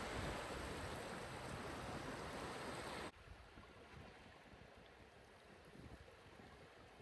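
Small waves washing in over shallow water at the shoreline, a steady splashing wash. It is louder at first and drops abruptly to a quieter wash about three seconds in.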